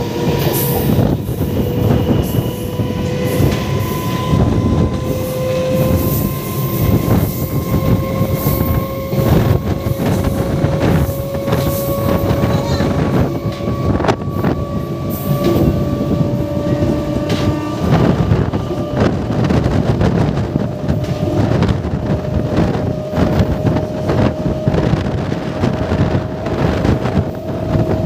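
MEMU electric multiple-unit train running along the track, a steady loud rumble of wheels on rail with scattered clicks over rail joints. A thin whine from the traction motors rises slowly in pitch throughout as the train gathers speed.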